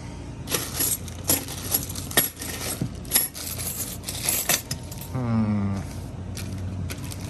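Metal key blanks and small hardware clinking and jangling as they are handled and sorted, in a quick string of sharp clicks. A short, low, falling hum of voice comes about five seconds in.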